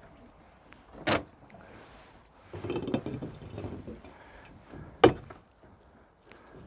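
Handling gear on a wooden dock while a rope line is coiled by hand: a sharp knock about a second in, a second of scraping and clattering, then another sharp knock about five seconds in.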